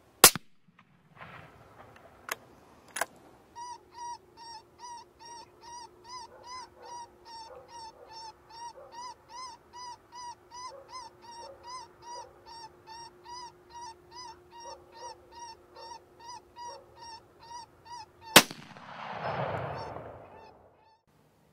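A gunshot, then a predator call playing a squalling distress cry over and over, about two and a half cries a second, for some fifteen seconds. A second gunshot comes near the end and is followed by a short rushing noise.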